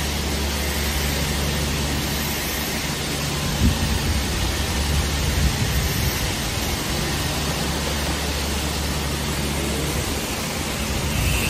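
Factory floor machinery noise: a steady hiss with a low hum underneath, and a sharp knock about four seconds in followed by a few smaller knocks.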